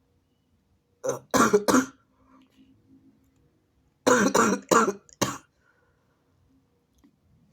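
A person stifling sneezes: a quick run of three short, sharp bursts about a second in, then a run of four more about four seconds in.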